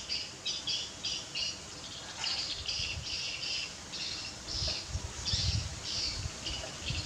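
A rapid series of short, high, buzzy chirping calls, about three a second, from an animal outdoors, with a few low thumps about two-thirds of the way through.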